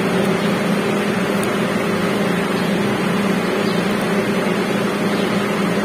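A steady mechanical hum with a constant hiss, unchanged throughout.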